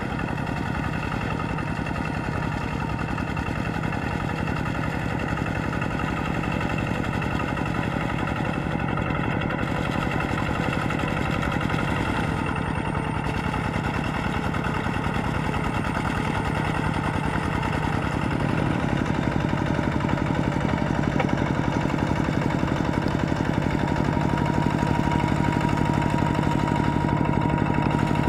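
Kubota RT120 walking tractor's single-cylinder diesel engine running steadily under load as its cage wheels churn through the mud of a flooded rice field. It grows somewhat louder about two-thirds of the way through.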